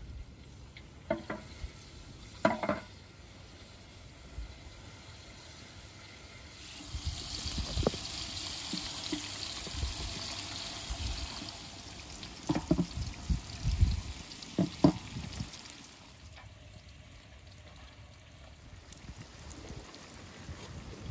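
Hot oil in a metal pot sizzling as sliced potatoes are laid into it to form the potato crust (tahdig) under the rice. The sizzle starts about a third of the way in and fades after about twelve seconds, with a few sharp knocks of pot and tray before and after it.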